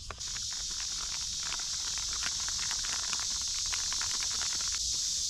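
Steady high-pitched drone of an insect chorus, cicadas or crickets, that starts abruptly a moment in and holds level. Faint light clicks and scratches are scattered over it.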